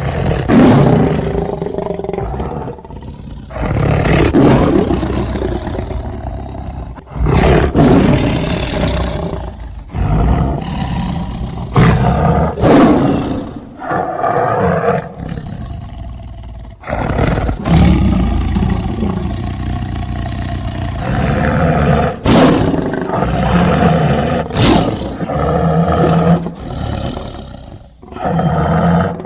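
Godzilla monster roar sound effects, one after another: about ten loud roars of a few seconds each, most starting suddenly.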